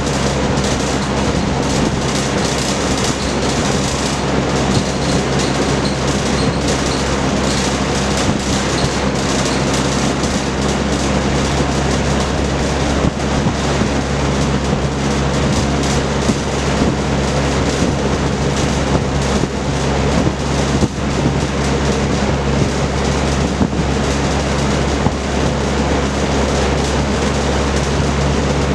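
Vintage Kenmore Roll-A-Matic 20-inch electrically reversible box fan with a four-blade propeller running steadily: a constant rush of moving air over a low motor hum.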